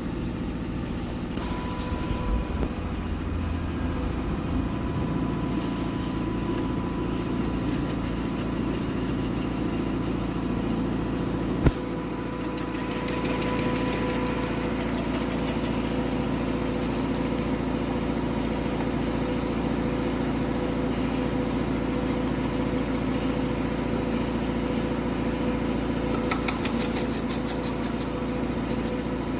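CMA Rapid Drill RD-32 CN CNC drilling machine running: a steady mechanical hum, with a steady whine that sets in about a second and a half in. A single sharp knock comes about twelve seconds in, and a brief rattle with a high whine near the end.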